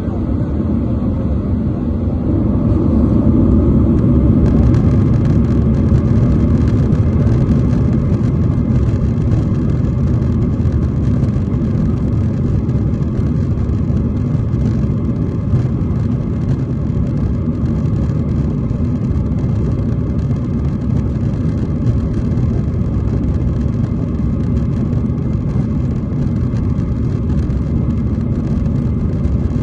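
Jet airliner's engines and wheels rolling on the runway, heard from inside the cabin as a steady low rumble that grows louder about three seconds in.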